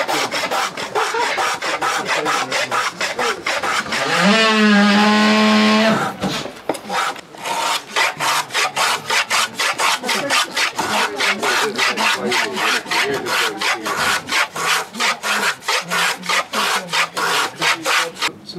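Quick rasping strokes of a small hand tool worked back and forth along the edge of a plywood boat plank, about four strokes a second, shaping the edge. About four seconds in, a loud hum rises in pitch and then holds for about two seconds over the strokes.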